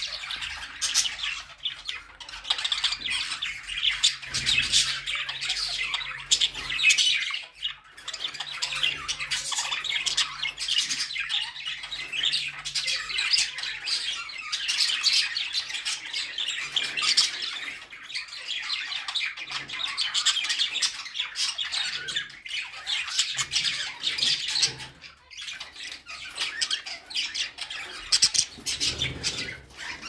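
A group of budgerigars chattering: a dense, continuous stream of short calls, dipping only briefly now and then.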